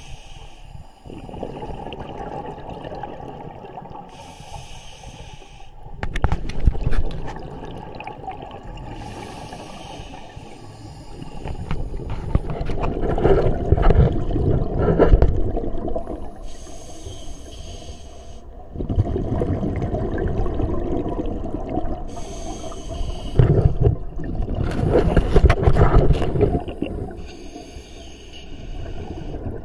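Scuba diver breathing through a regulator underwater: a short hiss on each inhale, then a longer loud rush of exhaust bubbles, in slow regular breaths about every five seconds.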